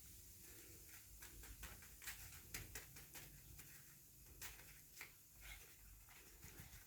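Near silence with a scattering of faint, short clicks and taps, most between about one and six seconds in.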